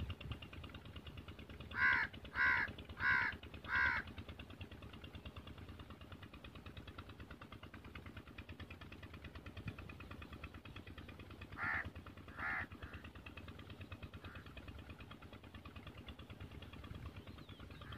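Crow cawing: four harsh caws in quick succession about two seconds in, then two more near the middle, over a steady low background.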